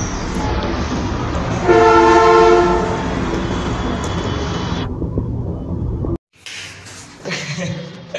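A loud horn sounds once for about a second, several steady tones together, over a steady outdoor rumble. The audio cuts off abruptly about six seconds in, and quieter, muffled sounds follow.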